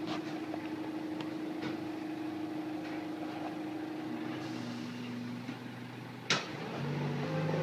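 Hydraulic machinery working a timber grapple: a steady hum that drops to lower tones about two-thirds of the way through as the hydraulics are worked, with one sharp knock about six seconds in.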